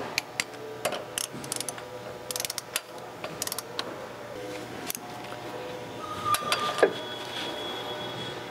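Torque wrench ratchet clicking in short runs as the handle is swung back between pulls, tightening flywheel bolts to their final torque.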